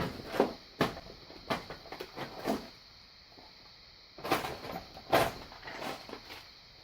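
Irregular small clicks and taps of metal lock parts and tools being handled as a padlock is disassembled with a plug follower, about eight knocks with pauses between, the loudest two near the middle.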